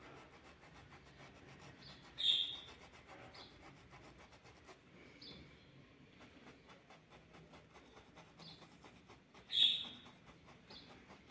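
Faint rubbing of a paintbrush worked back and forth with acrylic paint over coarse cotton sacking fabric. A small bird chirps now and then over it, loudest about two seconds in and again near the end.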